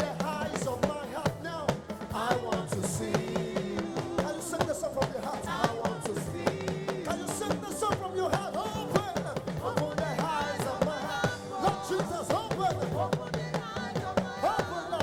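Live church praise band playing an upbeat Nigerian gospel groove, with dense drum and percussion strikes under pitched instrumental lines and no pause.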